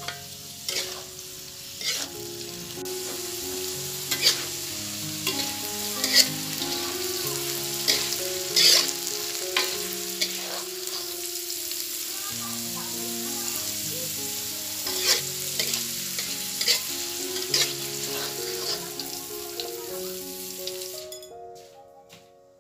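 Sliced young papaya stir-frying in a wok: steady sizzling, with a metal spatula scraping and knocking against the pan every second or two. The sizzle cuts off near the end, leaving soft piano music.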